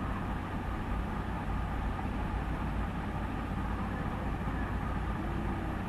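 Steady background noise with a low hum, and a faint voice murmuring in the last half second.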